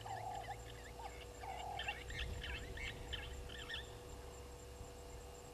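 Wild birds calling: rapid, repeated chirps that grow busiest from about two to four seconds in, then stop, over a lower repeated call in a short-then-long pattern that ends about two seconds in. A faint steady hum runs underneath.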